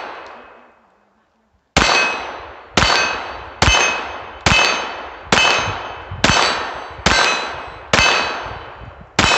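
Nine pistol shots fired at a steady pace, about one a second. Each is followed by the ringing ding of a steel target being hit.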